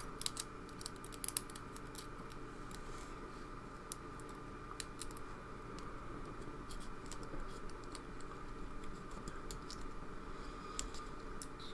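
Faint, scattered small metallic clicks and scratches from a pin-tumbler lock being handled while a shim is worked in around its plug to gut it, with a few sharper clicks near the start, about four seconds in, and near the end.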